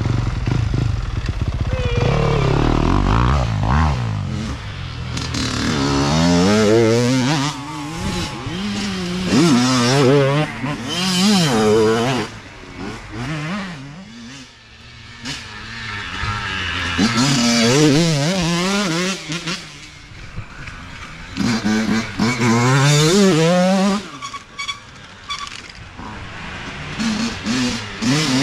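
Dirt bike engines revving and easing off as several bikes pass in turn, their pitch repeatedly climbing and dropping with throttle and gear changes. There are quieter lulls about halfway through and again near the end.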